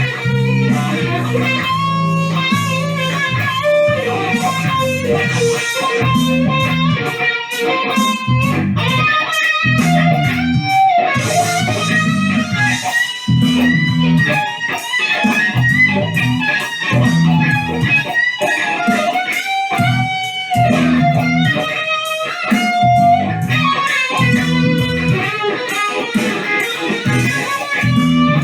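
Electric guitar played through a wah pedal: a loud, chopped rhythmic riff with the tone sweeping up and down.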